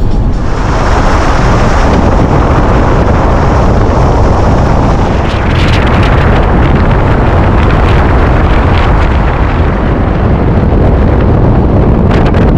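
Loud, steady wind noise rushing and buffeting over the microphone.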